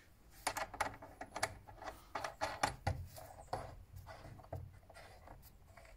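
Irregular light clicks and knocks, about fifteen in quick succession, of metal hardware against an aluminium case as a bolt and wing nut are fitted through its floor.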